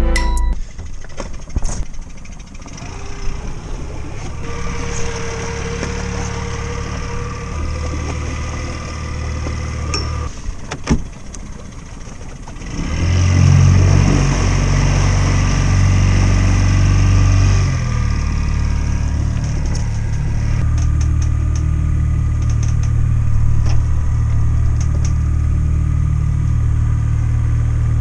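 Small outboard motor running at low speed, then growing louder a little before halfway as the throttle is opened, and running steadily after that.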